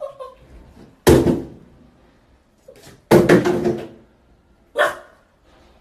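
Plastic toiletry bottles knocked off the rim of an empty bathtub by a puppy, clattering down into the tub with hollow ringing thuds: one fall about a second in, then a longer clatter of several hits just after three seconds. A shorter sharp sound follows near the end.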